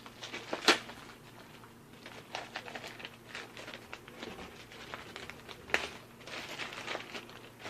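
Paper and packaging rustling and crinkling as printed brochures and folders are handled and pulled out, with scattered sharp clicks, the strongest about a second in and again near six seconds.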